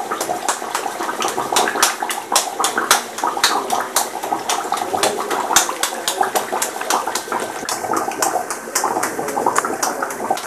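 Rice-flour curd roti deep-frying in hot oil: a steady sizzle packed with dense crackling pops, the sign that the oil is properly hot.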